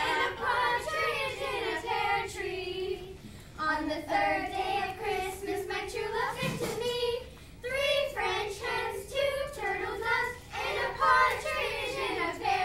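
A small group of children singing a Christmas carol together without accompaniment, in phrases separated by short breaks for breath.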